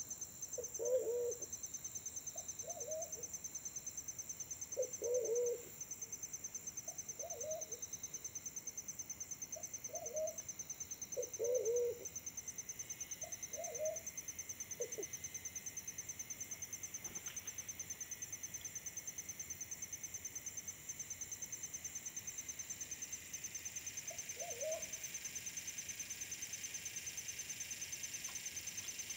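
Forest pigeons cooing: short, low coos repeated every second or two, some longer and louder than others, falling silent about halfway through and coming back once near the end. A steady, high, pulsing insect trill runs underneath.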